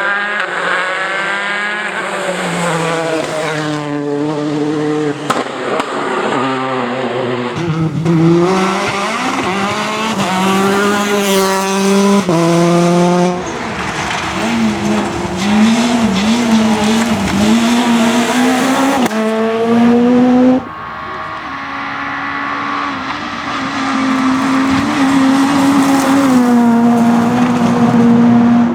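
Rally cars at full throttle on a special stage, engines revving up and dropping back through gear changes. The sound changes abruptly several times as one car gives way to the next.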